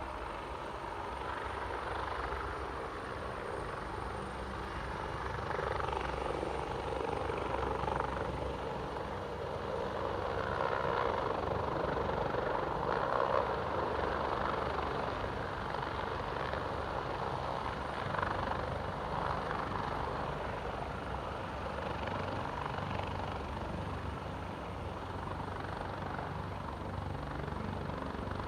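Helicopter rotor and turbine engine running continuously, swelling and easing a little in loudness.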